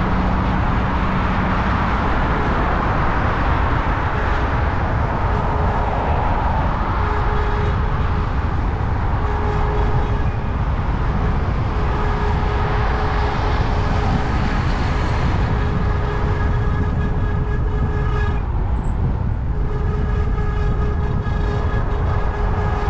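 Steady rumbling running noise of a moving vehicle, with a faint whine that comes and goes.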